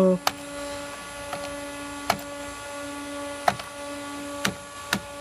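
Keys pressed one at a time on a computer terminal's keyboard, about five sharp clicks a second or so apart, over a steady electrical hum.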